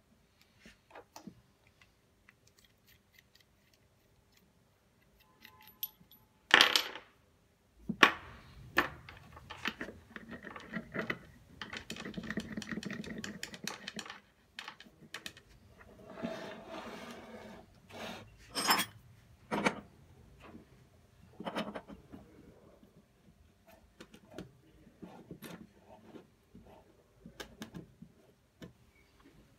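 Brass pipe fittings clinking and knocking as they are handled on a wooden workbench, with a few sharp knocks standing out, and stretches of rubbing and rustling as hemp sealing fibre is wrapped onto the threads.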